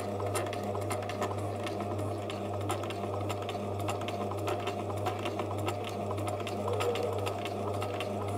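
Bernina 1008 mechanical sewing machine running steadily, sewing a triple straight stitch through denim: an even motor hum with a quick regular ticking of the needle. It pulses about three times a second as the feed goes forward and back over each stitch.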